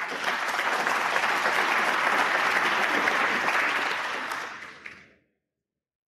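Snooker crowd applauding a player's break, steady clapping that fades away about five seconds in.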